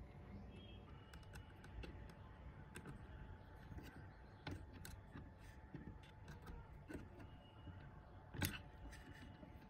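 Small metal clicks and ticks of a hex key and a slotted metal shaft coupling being handled while the coupling's set screw is tightened on a model turbojet's shaft, with one sharper click near the end.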